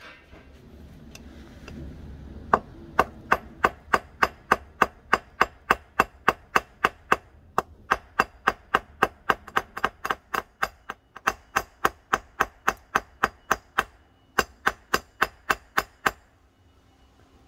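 Small hammer peening over the pins that fix a fitting onto the tang of a saw-blade steel kitchen knife: sharp metal-on-metal taps on a steel plate, about three a second, with a short pause near the end. A low rumbling noise comes before the first taps.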